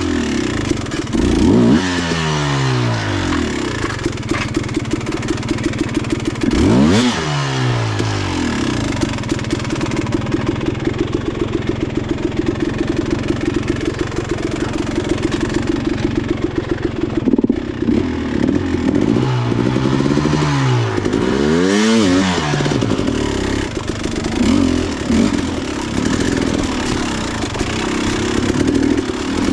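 Dirt bike engine running steadily while riding, revved up and back down several times: a couple of seconds in, around seven seconds, and twice around twenty to twenty-two seconds.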